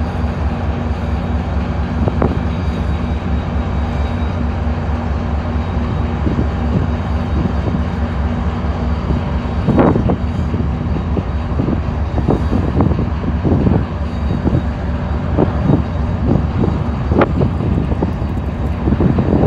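A steady low machine drone, like a running engine, with scattered knocks and handling noises, the loudest about halfway through and several more near the end.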